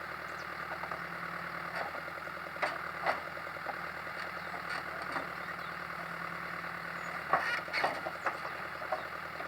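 Diesel engine of a Cat 428C backhoe loader running steadily at low revs, with a few sharp knocks from the working machine, two near the middle and two toward the end.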